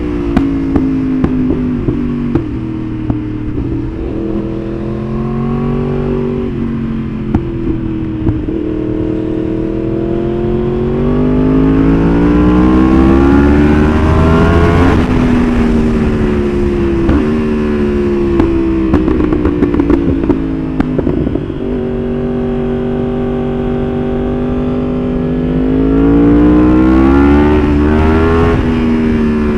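Yamaha R1's crossplane inline-four being ridden hard, revving up and easing off twice over long pulls. Short crackles and pops come from the exhaust as it slows, the sign of its pop-and-bang ECU tune.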